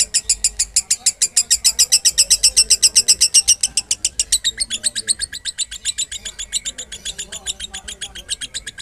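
Female lovebird singing 'konslet', the long non-stop chattering song: an unbroken run of rapid high chirps, about nine a second, shifting slightly in tone about four seconds in.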